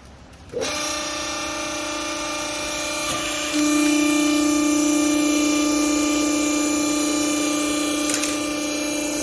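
Hydraulic pump motor of a horizontal clothes-scrap baler starting up about half a second in and running with a steady hum. It gets louder about three seconds later, as the pump comes on load, and then holds steady.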